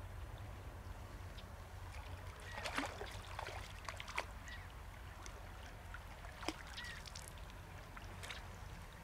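Faint river water lapping and trickling, with scattered light clicks and taps and a few brief chirps.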